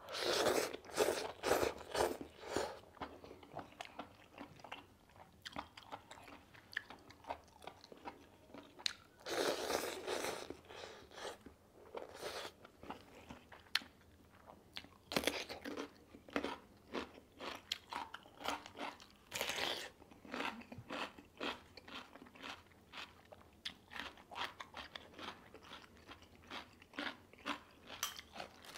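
Close-miked eating sounds: a noodle slurp at the start, then steady chewing with many crisp crunches and a few louder bites, as fresh cucumber is bitten and chewed.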